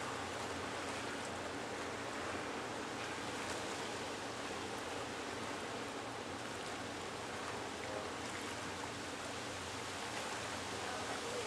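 Steady, even rushing background noise with a faint low hum underneath and no distinct events.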